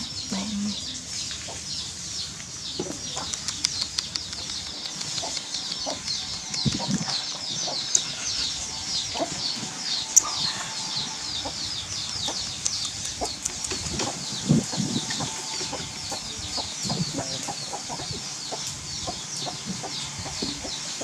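Many small birds chirping nonstop in a dense chorus of quick, high, downward chirps, with a few soft low knocks and two sharp clicks.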